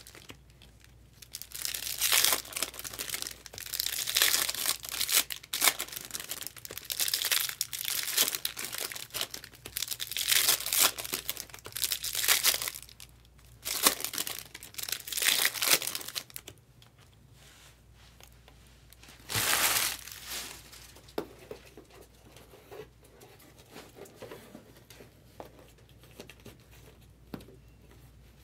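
Bowman Chrome trading card packs being torn open, their foil wrappers crinkling in a busy run of rustling bursts for about fifteen seconds. One more short burst follows, then only light ticks of cards being handled.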